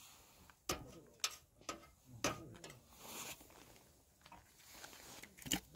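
Sharp metallic clinks and knocks as a metal camping mug is lifted off a gas stove and set down on a steel mesh camp table: a few separate clicks in the first half, a loud one near the end.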